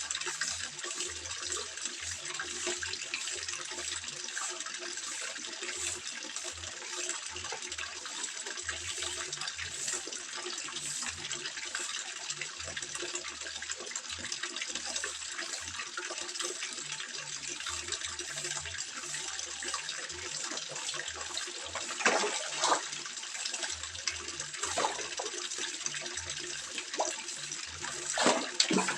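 Water trickling and splashing steadily, as at a koi pond, with two louder splashes, one about two-thirds of the way in and one near the end.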